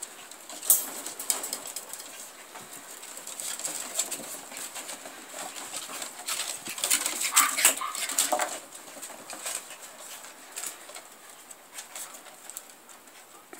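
Havanese puppies playing on a wooden deck: scattered clicks and scuffles of paws and toys on the boards, busiest about seven seconds in.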